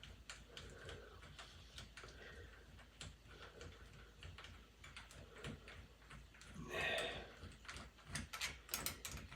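Faint ticks and clicks of a door knob's mounting screws being unscrewed, with a louder scrape about seven seconds in and a run of sharper clicks near the end.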